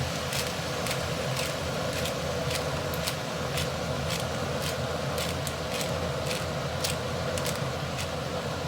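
Sharp, irregular crackles of food frying in a hot pan, about two to three a second, over a steady mechanical hum.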